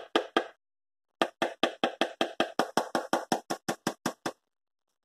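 A metal utensil beating wet beer batter in a plastic container, making sharp clicking taps against the container's side. A couple of taps come at the start, then a steady run of about five a second for some three seconds.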